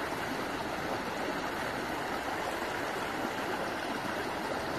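A shallow stream rushing over rocks, a steady even rush of water with no pauses or distinct splashes.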